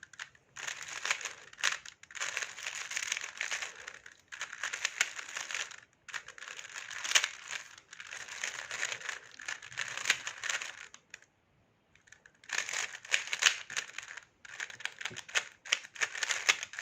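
Magnetic speedcube being turned rapidly by hand: fast runs of light plastic clicks and clacks that come in bursts with brief pauses, the longest pause about eleven seconds in.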